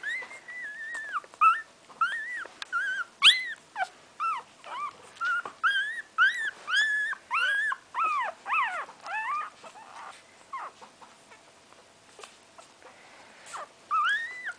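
Five-day-old puppy crying in a fast run of short, high squeals that rise and fall, about two a second. The squeals die down for a few seconds past the middle and start again near the end. It is a hungry newborn that has not yet found a teat to nurse on.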